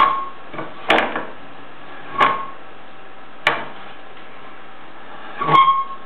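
Old meat grinder working: a sharp metallic clank with a short ringing squeal every second or so, five in all, over a steady background hiss.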